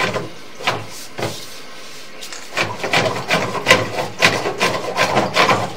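Sewer inspection camera and its push cable knocking and scraping inside the pipe: a few separate knocks, then from about two seconds in a dense run of rapid clatter and rubbing. The camera is being jabbed against a spot in the main sewer line that it can't get past.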